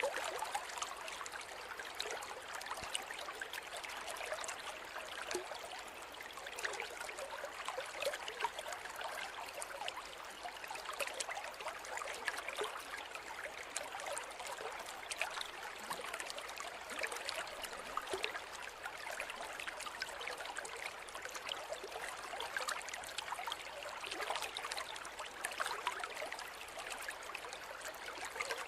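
Forest river or stream flowing steadily over stones, an even rushing babble with fine trickling and splashing detail and little deep rumble.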